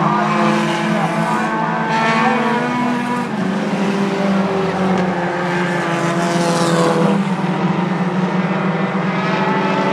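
Four-cylinder short-track race cars running laps at speed, several engines overlapping, their pitch rising and falling as they go by, with a falling sweep a little past the middle as one passes close.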